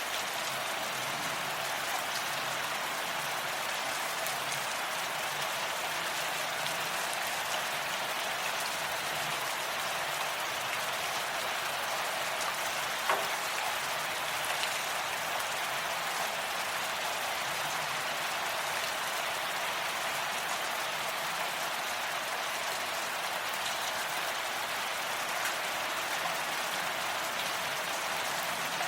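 Steady rain falling as an even hiss of many drops, with one sharper drop tick about halfway through.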